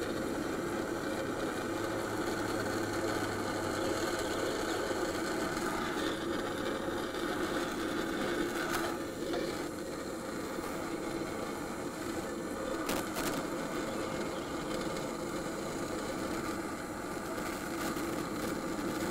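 Handheld gas torch burning on a gentle flame, a steady hiss, warming a motorcycle rear wheel hub around its bearing to free it.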